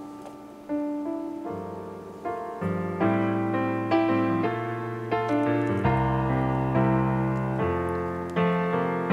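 Background piano music: single held notes at first, filling out into fuller chords about one and a half seconds in.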